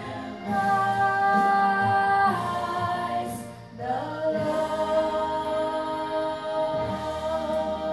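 A woman singing solo in a recital, holding long sustained notes: a high note held for about two seconds, a short break near the middle, then one long held note.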